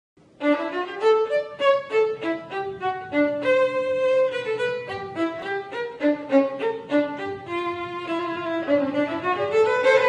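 Two violins playing a melody together as a duet: a quick run of bowed notes, with longer held notes a few seconds in.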